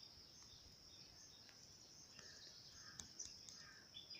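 Near silence: faint background ambience with a steady high-pitched whine and scattered faint chirps and ticks.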